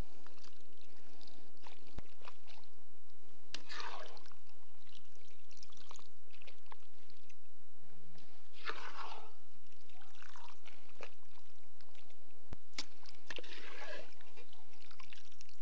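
Fried beef tripe being scooped out of a kazan with a ladle: scattered short scrapes and wet shuffling with a few clicks, over a steady low hum.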